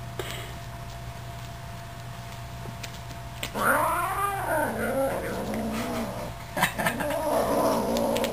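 An 8-week-old F3B Savannah kitten growling with a feather wand toy in its mouth: a drawn-out yowling growl that starts about a third of the way in and rises and falls in pitch, with a few short clicks near the end.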